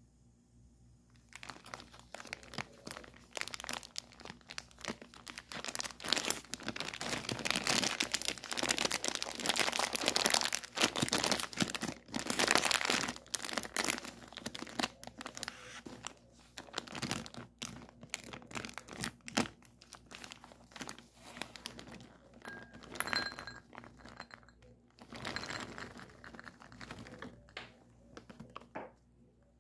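Plastic Maltesers pouch crinkling loudly and tearing as it is handled and opened, in a dense run of crackling for the first half. Then sparser rustling and clicking as the chocolate balls are poured into a small ceramic bowl.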